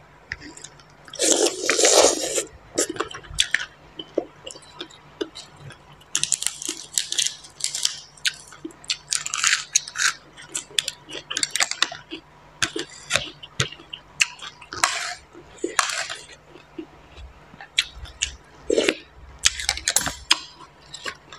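Close-miked eating sounds: wet chewing and smacking of spicy green papaya salad with rice noodles, in many short irregular bursts with occasional small clicks, and a louder mouthful about a second in.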